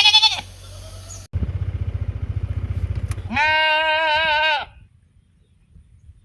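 Sheep bleating: a short, wavering bleat at the very start, then a loud, long, quavering bleat about three seconds in that lasts over a second. Between the two bleats a low, rapid throb can be heard.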